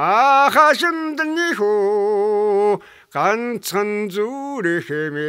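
An old man singing a Mongolian song unaccompanied. His voice slides up into long held notes with vibrato, with a short break for breath about three seconds in.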